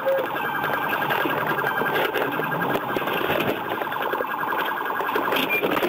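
Police car siren sounding a fast warbling pattern, which cuts off near the end.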